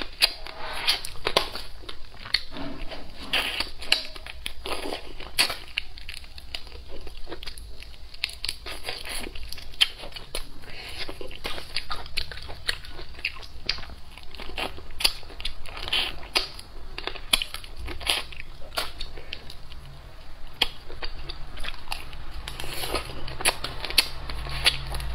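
Close-miked chewing and biting of spicy braised food with chopsticks: a dense, irregular run of wet mouth clicks, smacks and crunches.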